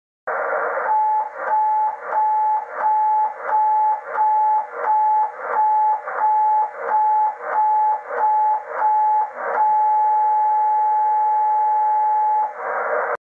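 Radio receiver hiss with a steady whistle-like tone keyed on and off thirteen times, about one and a half a second, then held on for about three seconds. This is the Geloso G.4/225 transmitter's carrier on 80 metres, heard as a beat note through a receiver. During the steady part the key is held down while the transmitter's output power is read.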